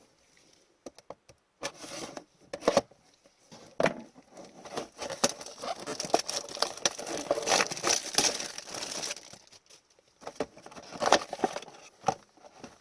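A cardboard blaster box of hockey cards being torn open and its wrapping and packs crinkled and handled, in irregular snaps and rustles that are busiest in the middle.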